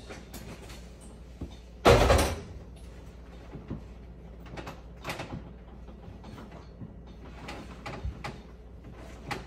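A loud knock or clatter about two seconds in, then scattered light clicks and knocks from hands and tools working on the range.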